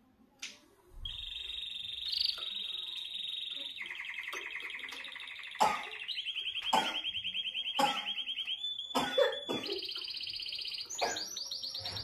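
Canary singing a long song of fast rolling trills, starting about a second in. Each trill is held for a second or two and then changes to a new trill at a different pitch, with short sharp notes or taps between them.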